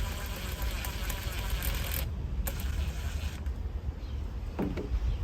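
Intake parts and hose clamps being handled: rustling, with light metal clinks and a single sharp click midway, over a steady low rumble.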